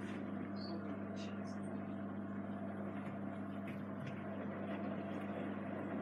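Samsung Eco Bubble WW90J5456FX front-loading washing machine mid-wash: the drum tumbling the wet load, with water and suds sloshing over a steady motor hum.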